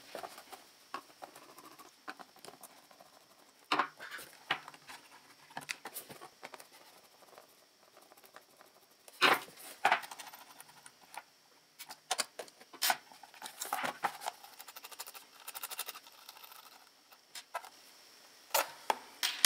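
Scattered small clicks, taps and scrapes of a screwdriver and hands working on a small plastic watch-winder motor gearbox to remove its bolt. A few sharper knocks stand out, the loudest about nine seconds in.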